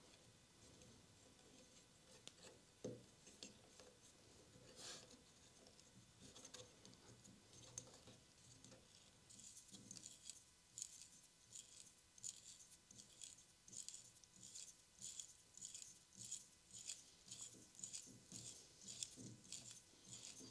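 A few faint handling knocks, then from about halfway a quiet, regular scraping at about two strokes a second: a small drill bit in a T-handle being turned by hand, boring into wood.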